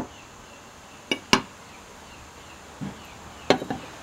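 Sharp knocks of hard objects striking: one at the start, two in quick succession about a second in, and another quick pair near the end.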